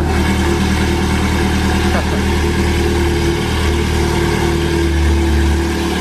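Ferrari 430 Scuderia's 4.3-litre naturally aspirated V8 idling steadily through its Capristo exhaust inside an underground car park: a loud, deep, even rumble that makes the floor vibrate.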